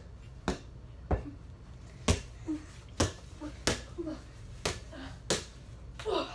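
Basketball being dribbled on a hard indoor floor: about seven sharp bounces at an uneven pace.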